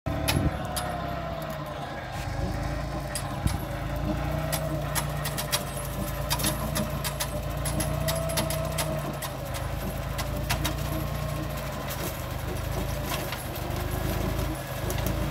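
Compact tractor engine running steadily under load while its rear-mounted forestry mulcher shreds brush, with a wavering whine over the engine note. Frequent sharp cracks and ticks run throughout.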